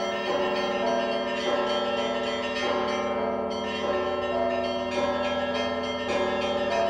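Church bells ringing a peal: several bells struck in quick succession, their tones ringing on and overlapping.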